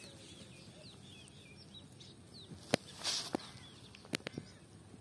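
Small birds chirping in the background, many short twittering calls. A few sharp clicks and a brief rustle come about three seconds in.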